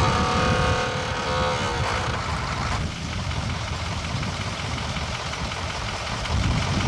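Utility bucket truck's engine running with a steady low rumble. During the first couple of seconds a mechanical whine of several pitches sounds over it, wavering and dropping before it stops.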